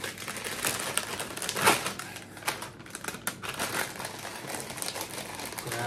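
Plastic snack bag of bhujia sev crinkling and rustling as it is handled, a dense, irregular run of small crackles.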